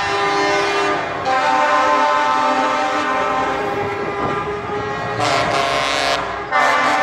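Truck air horns sounding in long held blasts, the chord of tones changing a few times as parading trucks pass.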